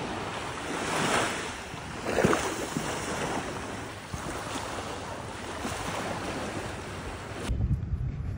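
Small waves breaking and washing up on a sandy shore, an even rushing surf that swells twice in the first few seconds. Near the end it cuts off abruptly and gives way to a low rumble of wind on the microphone.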